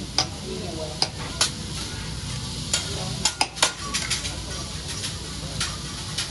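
Food sizzling on a steel hibachi griddle: a steady hiss, with sharp metal clicks of the chef's spatula against the griddle scattered through it, several in quick succession about three seconds in as the steaks are turned.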